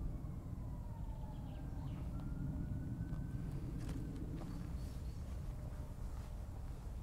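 A steady low rumble with a faint, distant siren wailing above it, its pitch slowly falling over the first couple of seconds, then rising again; a few sharp clicks about four seconds in.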